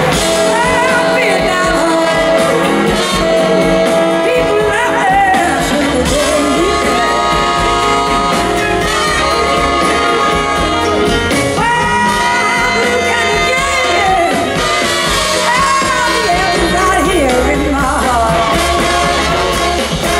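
Live blues band music: an electric guitar lead with bending, gliding notes over drums and bass.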